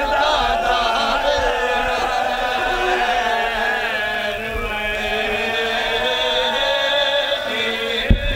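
A man's voice chanting a sung, mournful majlis lament in long, wavering held notes, amplified through a public-address system.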